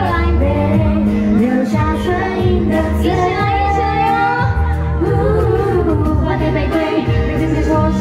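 Pop song with a woman singing over a backing track with a heavy, steady bass, played loud.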